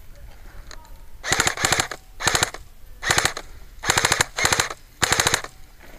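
Airsoft rifle firing on full auto in seven short bursts, each a quick rattle of shots.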